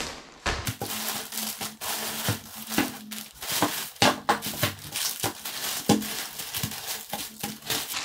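Plastic packaging crinkling and rustling continuously as plastic-bagged items are pulled out of a large poly mailer bag and set down one after another, with frequent short crackles and knocks.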